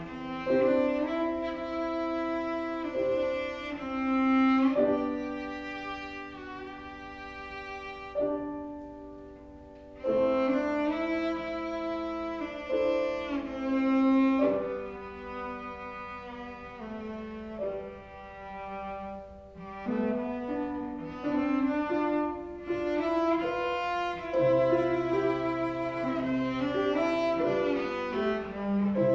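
Cello and grand piano playing a piece together, the bowed cello singing long sustained notes over the piano accompaniment. The music softens about a third of the way in and again past the middle, then swells back.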